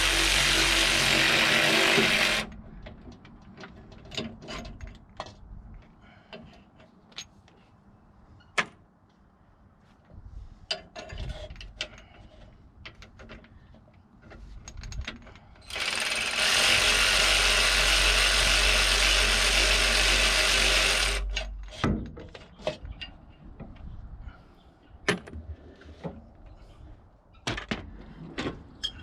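A power tool runs steadily twice: it cuts off about two seconds in and runs again for about five seconds in the middle. In between come scattered clicks and clinks of hand tools and metal parts.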